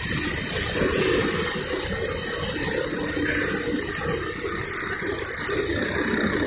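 Heavy machinery running steadily, with a thin, steady high whine above the mechanical noise.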